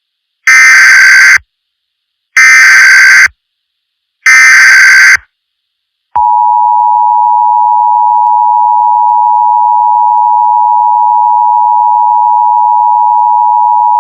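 Emergency Alert System tones: three short bursts of the SAME digital header, each about a second long, followed by the steady two-tone attention signal held for about eight seconds before cutting off.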